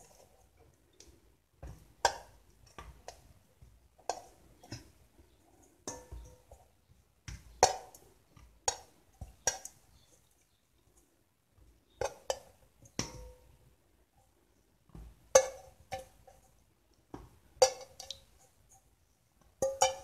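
Boiled potato wedges set by hand one at a time into an aluminium baking pan, each landing as a soft knock or a short metallic clink from the pan. The knocks come irregularly, a few every second or two, with a short pause about halfway.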